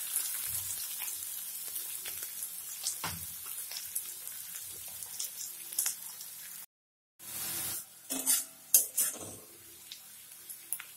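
Sliced onions and garlic cloves frying in hot oil in a pan: a steady sizzle with the small clicks and scrapes of a spatula stirring them. The sound drops out briefly about two-thirds through, then a few louder spatula knocks and scrapes come over a quieter sizzle.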